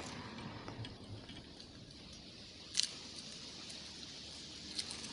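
Faint handling sounds of a plastic wobbler lure and its hooks in gloved hands: a few small clicks, the sharpest about three seconds in, over a quiet hiss.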